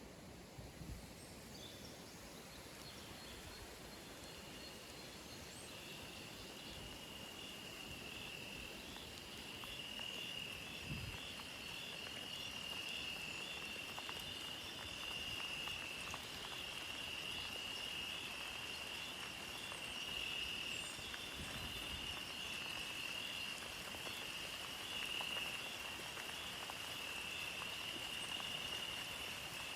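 Insects trilling on one high pitch with a regular pulsing, starting a few seconds in, over a soft steady hiss of water that grows a little louder.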